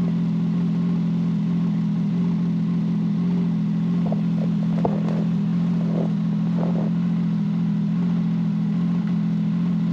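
Snowmobile engine idling steadily, an even low hum that holds the same pitch and loudness throughout.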